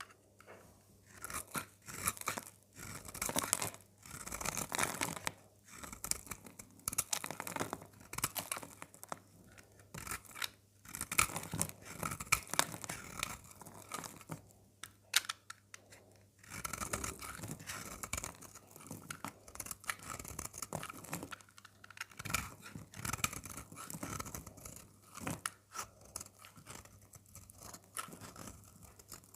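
Bar of dry soap being cut with a blade: repeated crunching and crackling cuts with sharp snaps, at an uneven pace.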